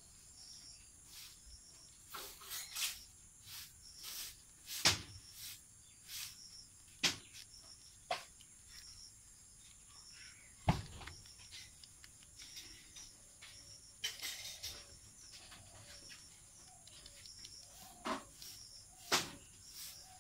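Young rabbits eating grass: irregular crisp clicks and rustles of grass stalks being bitten and pulled, with a few louder snaps and knocks spread through, over a faint steady high-pitched hiss.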